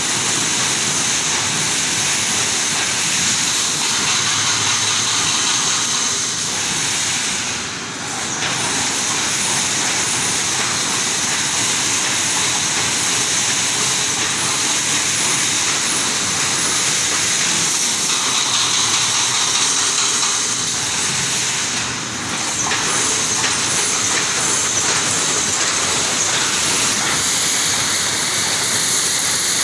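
Steady hissing noise of factory machinery, dipping briefly twice.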